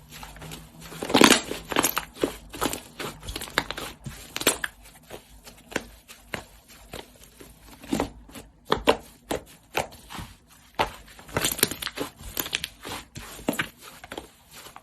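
Slime being squeezed and poked by hand, giving off a stream of irregular sticky clicks, pops and crackles. The pops come thickest about a second in and again near the end.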